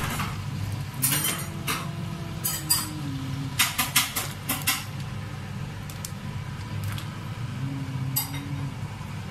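A wooden spatula scraping and knocking against a wok while chicken pieces are stirred in coconut milk. The strokes come in scattered clusters, busiest about four seconds in, over a steady low hum.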